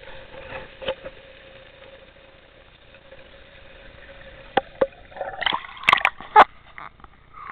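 Muffled underwater ambience with a faint steady hum and a few clicks, then from about five seconds in water splashing and sloshing over an action-camera housing as it breaks the surface, with two sharp loud splashes just after six seconds.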